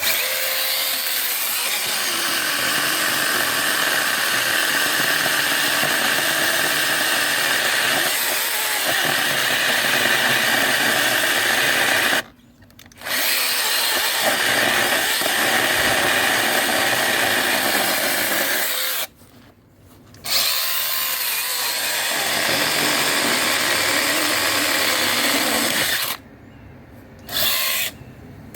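Cordless brushless mini chainsaw running in long stretches, a steady high whine with a rasping edge. It stops briefly three times and starts again each time.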